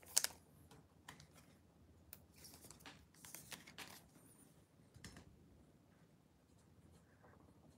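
Faint handling of trading cards: a few short papery swishes and slides as cards are moved about, the last about five seconds in.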